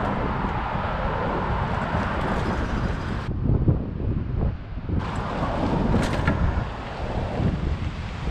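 Wind buffeting a handheld GoPro's microphone while riding, a steady low rumble, with road traffic going by in the first few seconds. The sound changes abruptly about three and five seconds in where separate clips are spliced together.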